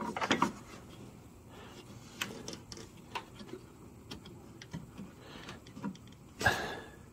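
Faint scattered clicks and light scraping as an LED headlight bulb and hands work against the plastic headlight housing, with a louder brief rustle near the end.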